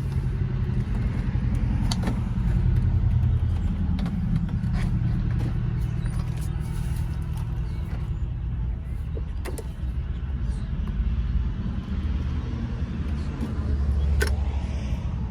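A steady low mechanical rumble, typical of a vehicle, with a few sharp clicks or knocks about two, nine and fourteen seconds in.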